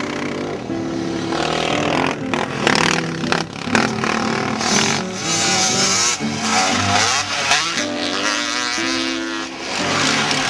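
Dirt bike engine running and revving hard, with music playing underneath.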